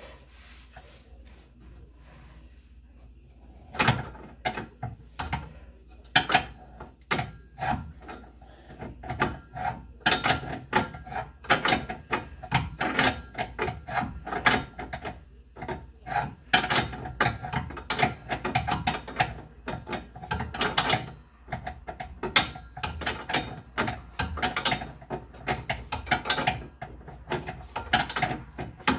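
Irregular runs of rapid metallic clicking and scraping from a wrench working the old upstream oxygen sensor out of the exhaust pipe, starting about four seconds in.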